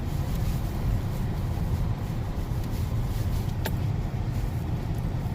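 Car driving through snow, heard from inside the cabin: a steady low rumble of road and engine noise, with a single click about three and a half seconds in.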